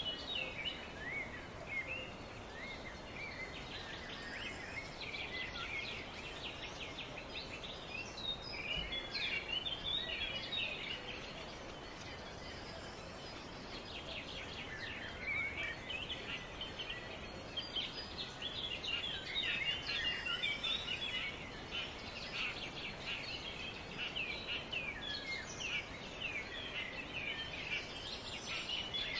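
Small birds chirping and twittering without a break, many quick high chirps and short trills over a steady background hiss.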